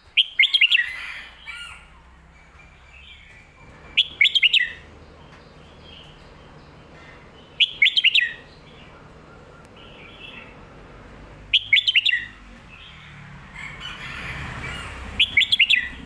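Caged red-whiskered bulbul singing: five short, loud phrases of quick warbling notes, about four seconds apart, with softer notes in between.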